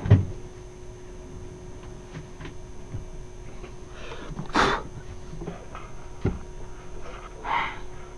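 Handling sounds from a portable compressor fridge/freezer in a slide-out drawer: a thump right at the start, a few light knocks, and two short rushing scrapes, one a little past the middle and one near the end, as its lid is lifted open.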